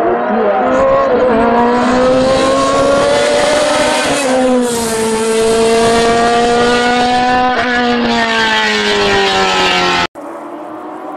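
Racing car engine at high revs, its pitch climbing and dropping with throttle and gear changes. About ten seconds in it cuts off abruptly to a quieter engine sound.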